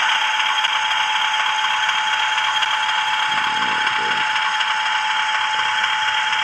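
Hornby OO-gauge Class 50 model locomotive running with its DCC sound decoder playing the diesel engine sound through the model's small speaker: a steady engine hum with a high whine held at one pitch, along with a mechanical rattle.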